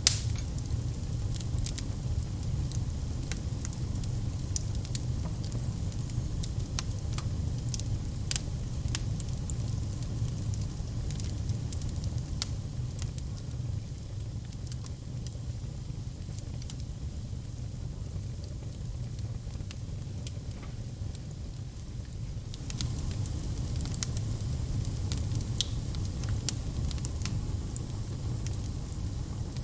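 Wood fire crackling, with irregular sharp pops over a steady low rumble of the flames; one loud pop right at the start.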